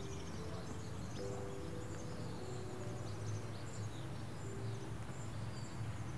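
Soft background music of slow, held notes over a low drone, with birds chirping faintly throughout.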